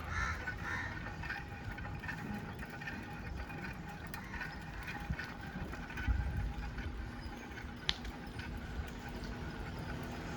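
Riding a bicycle: a steady low rumble of wind on the microphone and road noise, with faint street sounds and one sharp click about eight seconds in.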